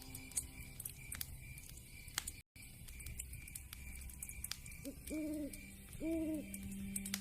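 Wood fire crackling with scattered sharp pops, the sound dropping out for an instant about two and a half seconds in. Near the end an owl hoots twice, each hoot a short steady note, preceded by a briefer call.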